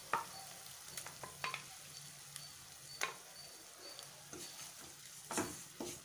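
Wooden spatula stirring ground masala paste into onions and tomatoes frying in a non-stick kadai: a light steady sizzle with a few sharp knocks of the spatula against the pan.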